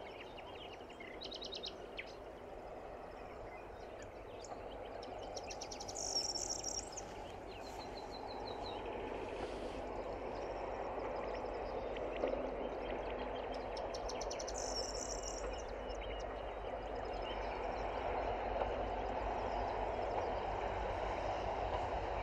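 Diesel locomotive approaching from a distance along the track, a low rumble that grows slowly louder. Birds sing over it, with short bursts of song about 6 and 15 seconds in.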